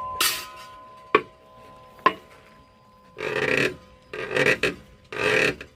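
Musical instruments being played: a short scrape, then two struck notes that ring on, then a run of short rough tones, about one a second.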